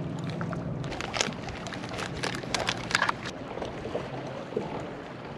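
Clicks and knocks of fishing gear being handled aboard a kayak, clustered in the middle, over water lapping and a low steady hum that fades about a second in.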